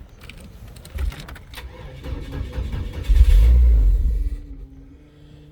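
2002 Chevy S10's 2.2-litre four-cylinder engine cranking over after a shot of spray, surging much louder for about a second past the middle, then falling away. This is a truck with a crank-no-start fault.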